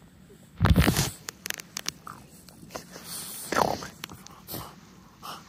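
A French bulldog lying on a fleece blanket, snuffling and huffing at a finger, with the blanket rustling. The loudest sound is a short huff less than a second in, and a brief sound falling in pitch follows near the middle.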